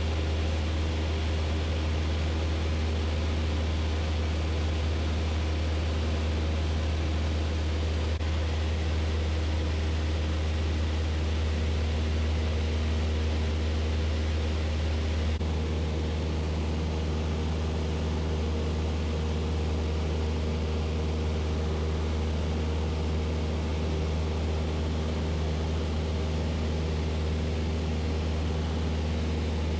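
Single-engine light aircraft's engine and propeller droning steadily in cruise, heard from inside the cabin, with a strong low hum under the drone. Its tone shifts slightly about halfway through.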